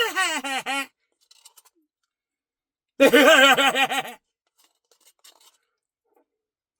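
A man's voice in two short sing-song, warbling phrases, one at the very start and another about three seconds in. Between them there is near silence with a few faint ticks.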